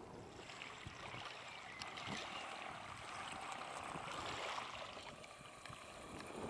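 Surf washing on a beach: a hiss that swells from about half a second in and eases off near the end.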